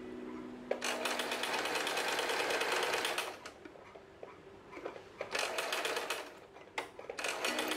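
Sewing machine stitching through fabric in bursts: a fast, even rattle of needle strokes for about two and a half seconds, a pause, then two shorter runs.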